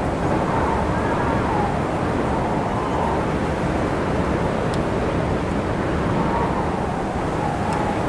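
Wind blowing steadily, a deep rushing noise with a faint whistle that wavers up and down in pitch now and then.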